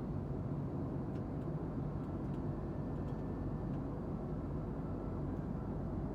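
Steady low rumble inside a jet airliner's cabin: engine and airflow noise.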